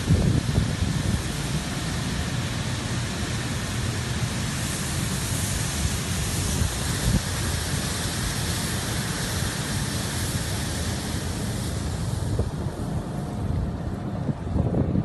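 Wind buffeting the microphone over a low rumble. Through the middle stretch a higher hissing rush joins it: grain pouring from a loading spout into a bulk carrier's hold.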